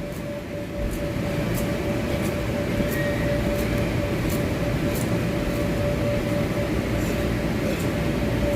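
Inflatable bounce house's air blower running, a steady low rumble with a constant hum over it and a few faint ticks.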